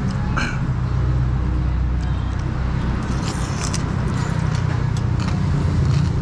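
Boat noodles being slurped from a spoon and chopsticks, a run of noisy slurps about three to four seconds in. Under it, the steady low rumble of a motor vehicle's engine running close by.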